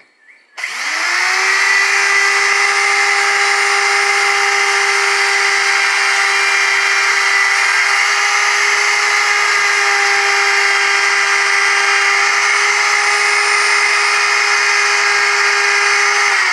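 Handheld electric router switched on about half a second in, spinning up to full speed and running with a steady high whine while it cuts a hinge plate mortise into a door edge, guided by a hinge-mortise jig.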